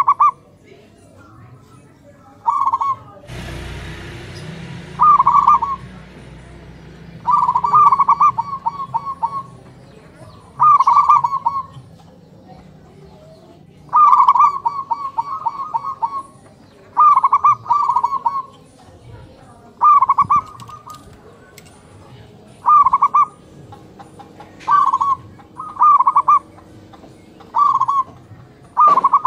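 Zebra doves (perkutut) cooing, about a dozen phrases of quick staccato coos, some long and drawn out, calling back and forth. A burst of noise starts suddenly about three seconds in and fades over a few seconds.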